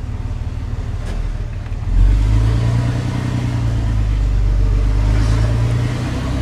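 Dodge Ram's Cummins turbo-diesel straight-six with a straight-through exhaust, heard from inside the cab while driving. About two seconds in the engine opens up with a sudden, louder note, held for about four seconds before easing off a little.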